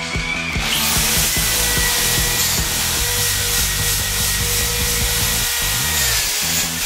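Electric drill with a wire cup brush starting up about a second in and scouring the painted metal ski of a sleigh: a steady motor whine under a harsh, continuous scraping hiss.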